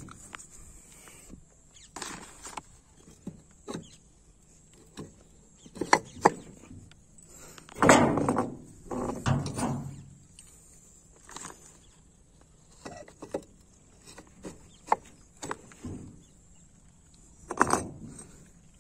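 Scattered knocks, clicks and handling noise around a steel switch box, the loudest a rough rustling stretch of about two seconds some eight seconds in. Near the end a porcelain kit-kat fuse carrier is pushed into its base with a short knock.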